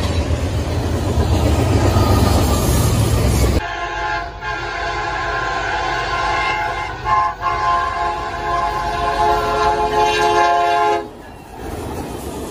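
Freight train cars rolling past with loud wheel rumble. Then a locomotive's multi-chime air horn sounds for about seven seconds, with two short breaks. A quieter locomotive rumble follows near the end.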